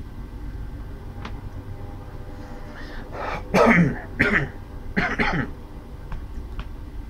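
A man clearing his throat and coughing in three short bursts a little past halfway, the first the loudest, over a low steady rumble of a train in the background.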